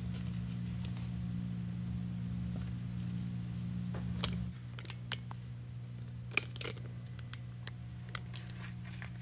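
Light rustles and scattered handling clicks as a disposable face mask is put on and the phone camera is picked up, over a steady low hum that drops a little about four and a half seconds in.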